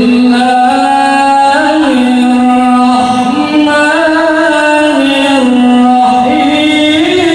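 A man's voice reciting in the melodic qiroah style, amplified through a sound system during a sound check. He holds long notes with slow ornamental turns and steps up in pitch near the end.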